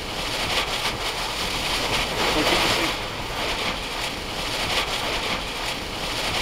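Wind and rain lashing a vehicle, heard from inside the cabin, rising and easing in gusts as a tornado passes close by.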